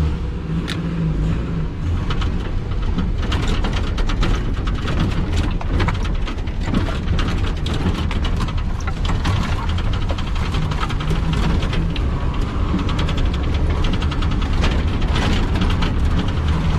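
Vehicle engine running steadily while driving over a rough, rutted dirt track, heard from inside the cab, with the body and loose fittings rattling and knocking constantly over the bumps.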